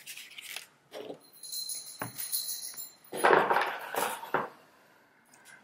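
A cardboard box and a leather zip pen case being handled and set down, rustling and scraping, loudest about three to four seconds in. Before that comes a brief high metallic jingle.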